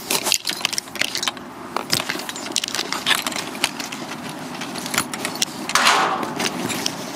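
Footsteps on railway ballast gravel with many small clicks and rattles of handheld camera and carried gear, as a person walks quickly beside freight cars. About six seconds in there is a brief, louder rush of scraping noise.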